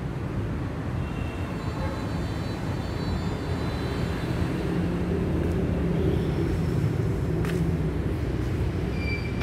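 A steady low mechanical rumble, with faint high whining tones for a few seconds and a sharp click about seven and a half seconds in.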